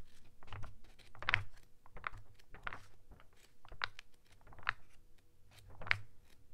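Irregular light clicks and taps, a couple each second, with soft handling noise from something held in the lap.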